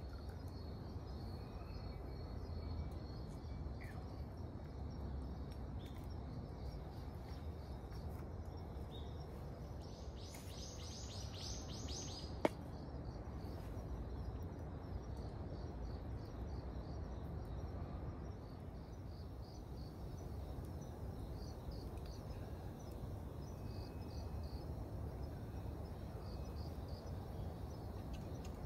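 Evening woodland ambience: insects chirping steadily in a fast pulsing chirr over a low background rumble, with a brief louder pulsed trill about ten seconds in. A single sharp click sounds about halfway through.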